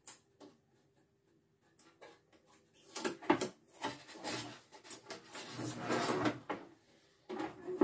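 Plastic clicks and knocks of a Magimix blade-and-disc storage case being prised open, starting about three seconds in, with a longer scraping rattle of the lid and parts a little before the end.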